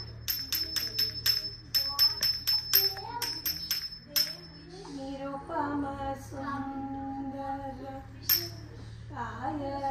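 Small Bharatanatyam hand cymbals (talam) struck in a steady beat, about four strikes a second, each with a bright ringing chime, under a voice chanting the rhythm. The strikes stop about four seconds in, a voice then sings held notes, and one more cymbal strike comes near the end.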